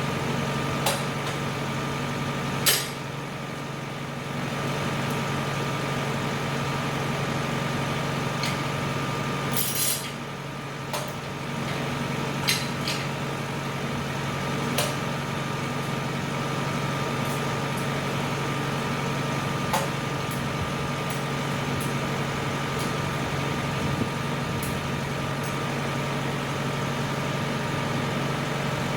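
Tractor engine running steadily, with scattered sharp metallic clanks and a short hiss about ten seconds in.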